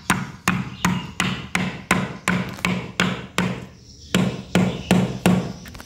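A soft-faced mallet repeatedly tapping a socket drift to drive a new seal into the bore of a Yamaha MX King 150's aluminium water pump housing. It gives a steady run of sharp knocks, about three a second, with a short pause a little before four seconds in.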